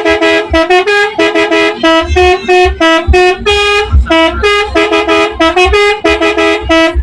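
Indonesian bus telolet multi-tone air horn played in quick short blasts, tapping out a fast, rhythmic melody on a few pitches, with low thuds under many of the notes.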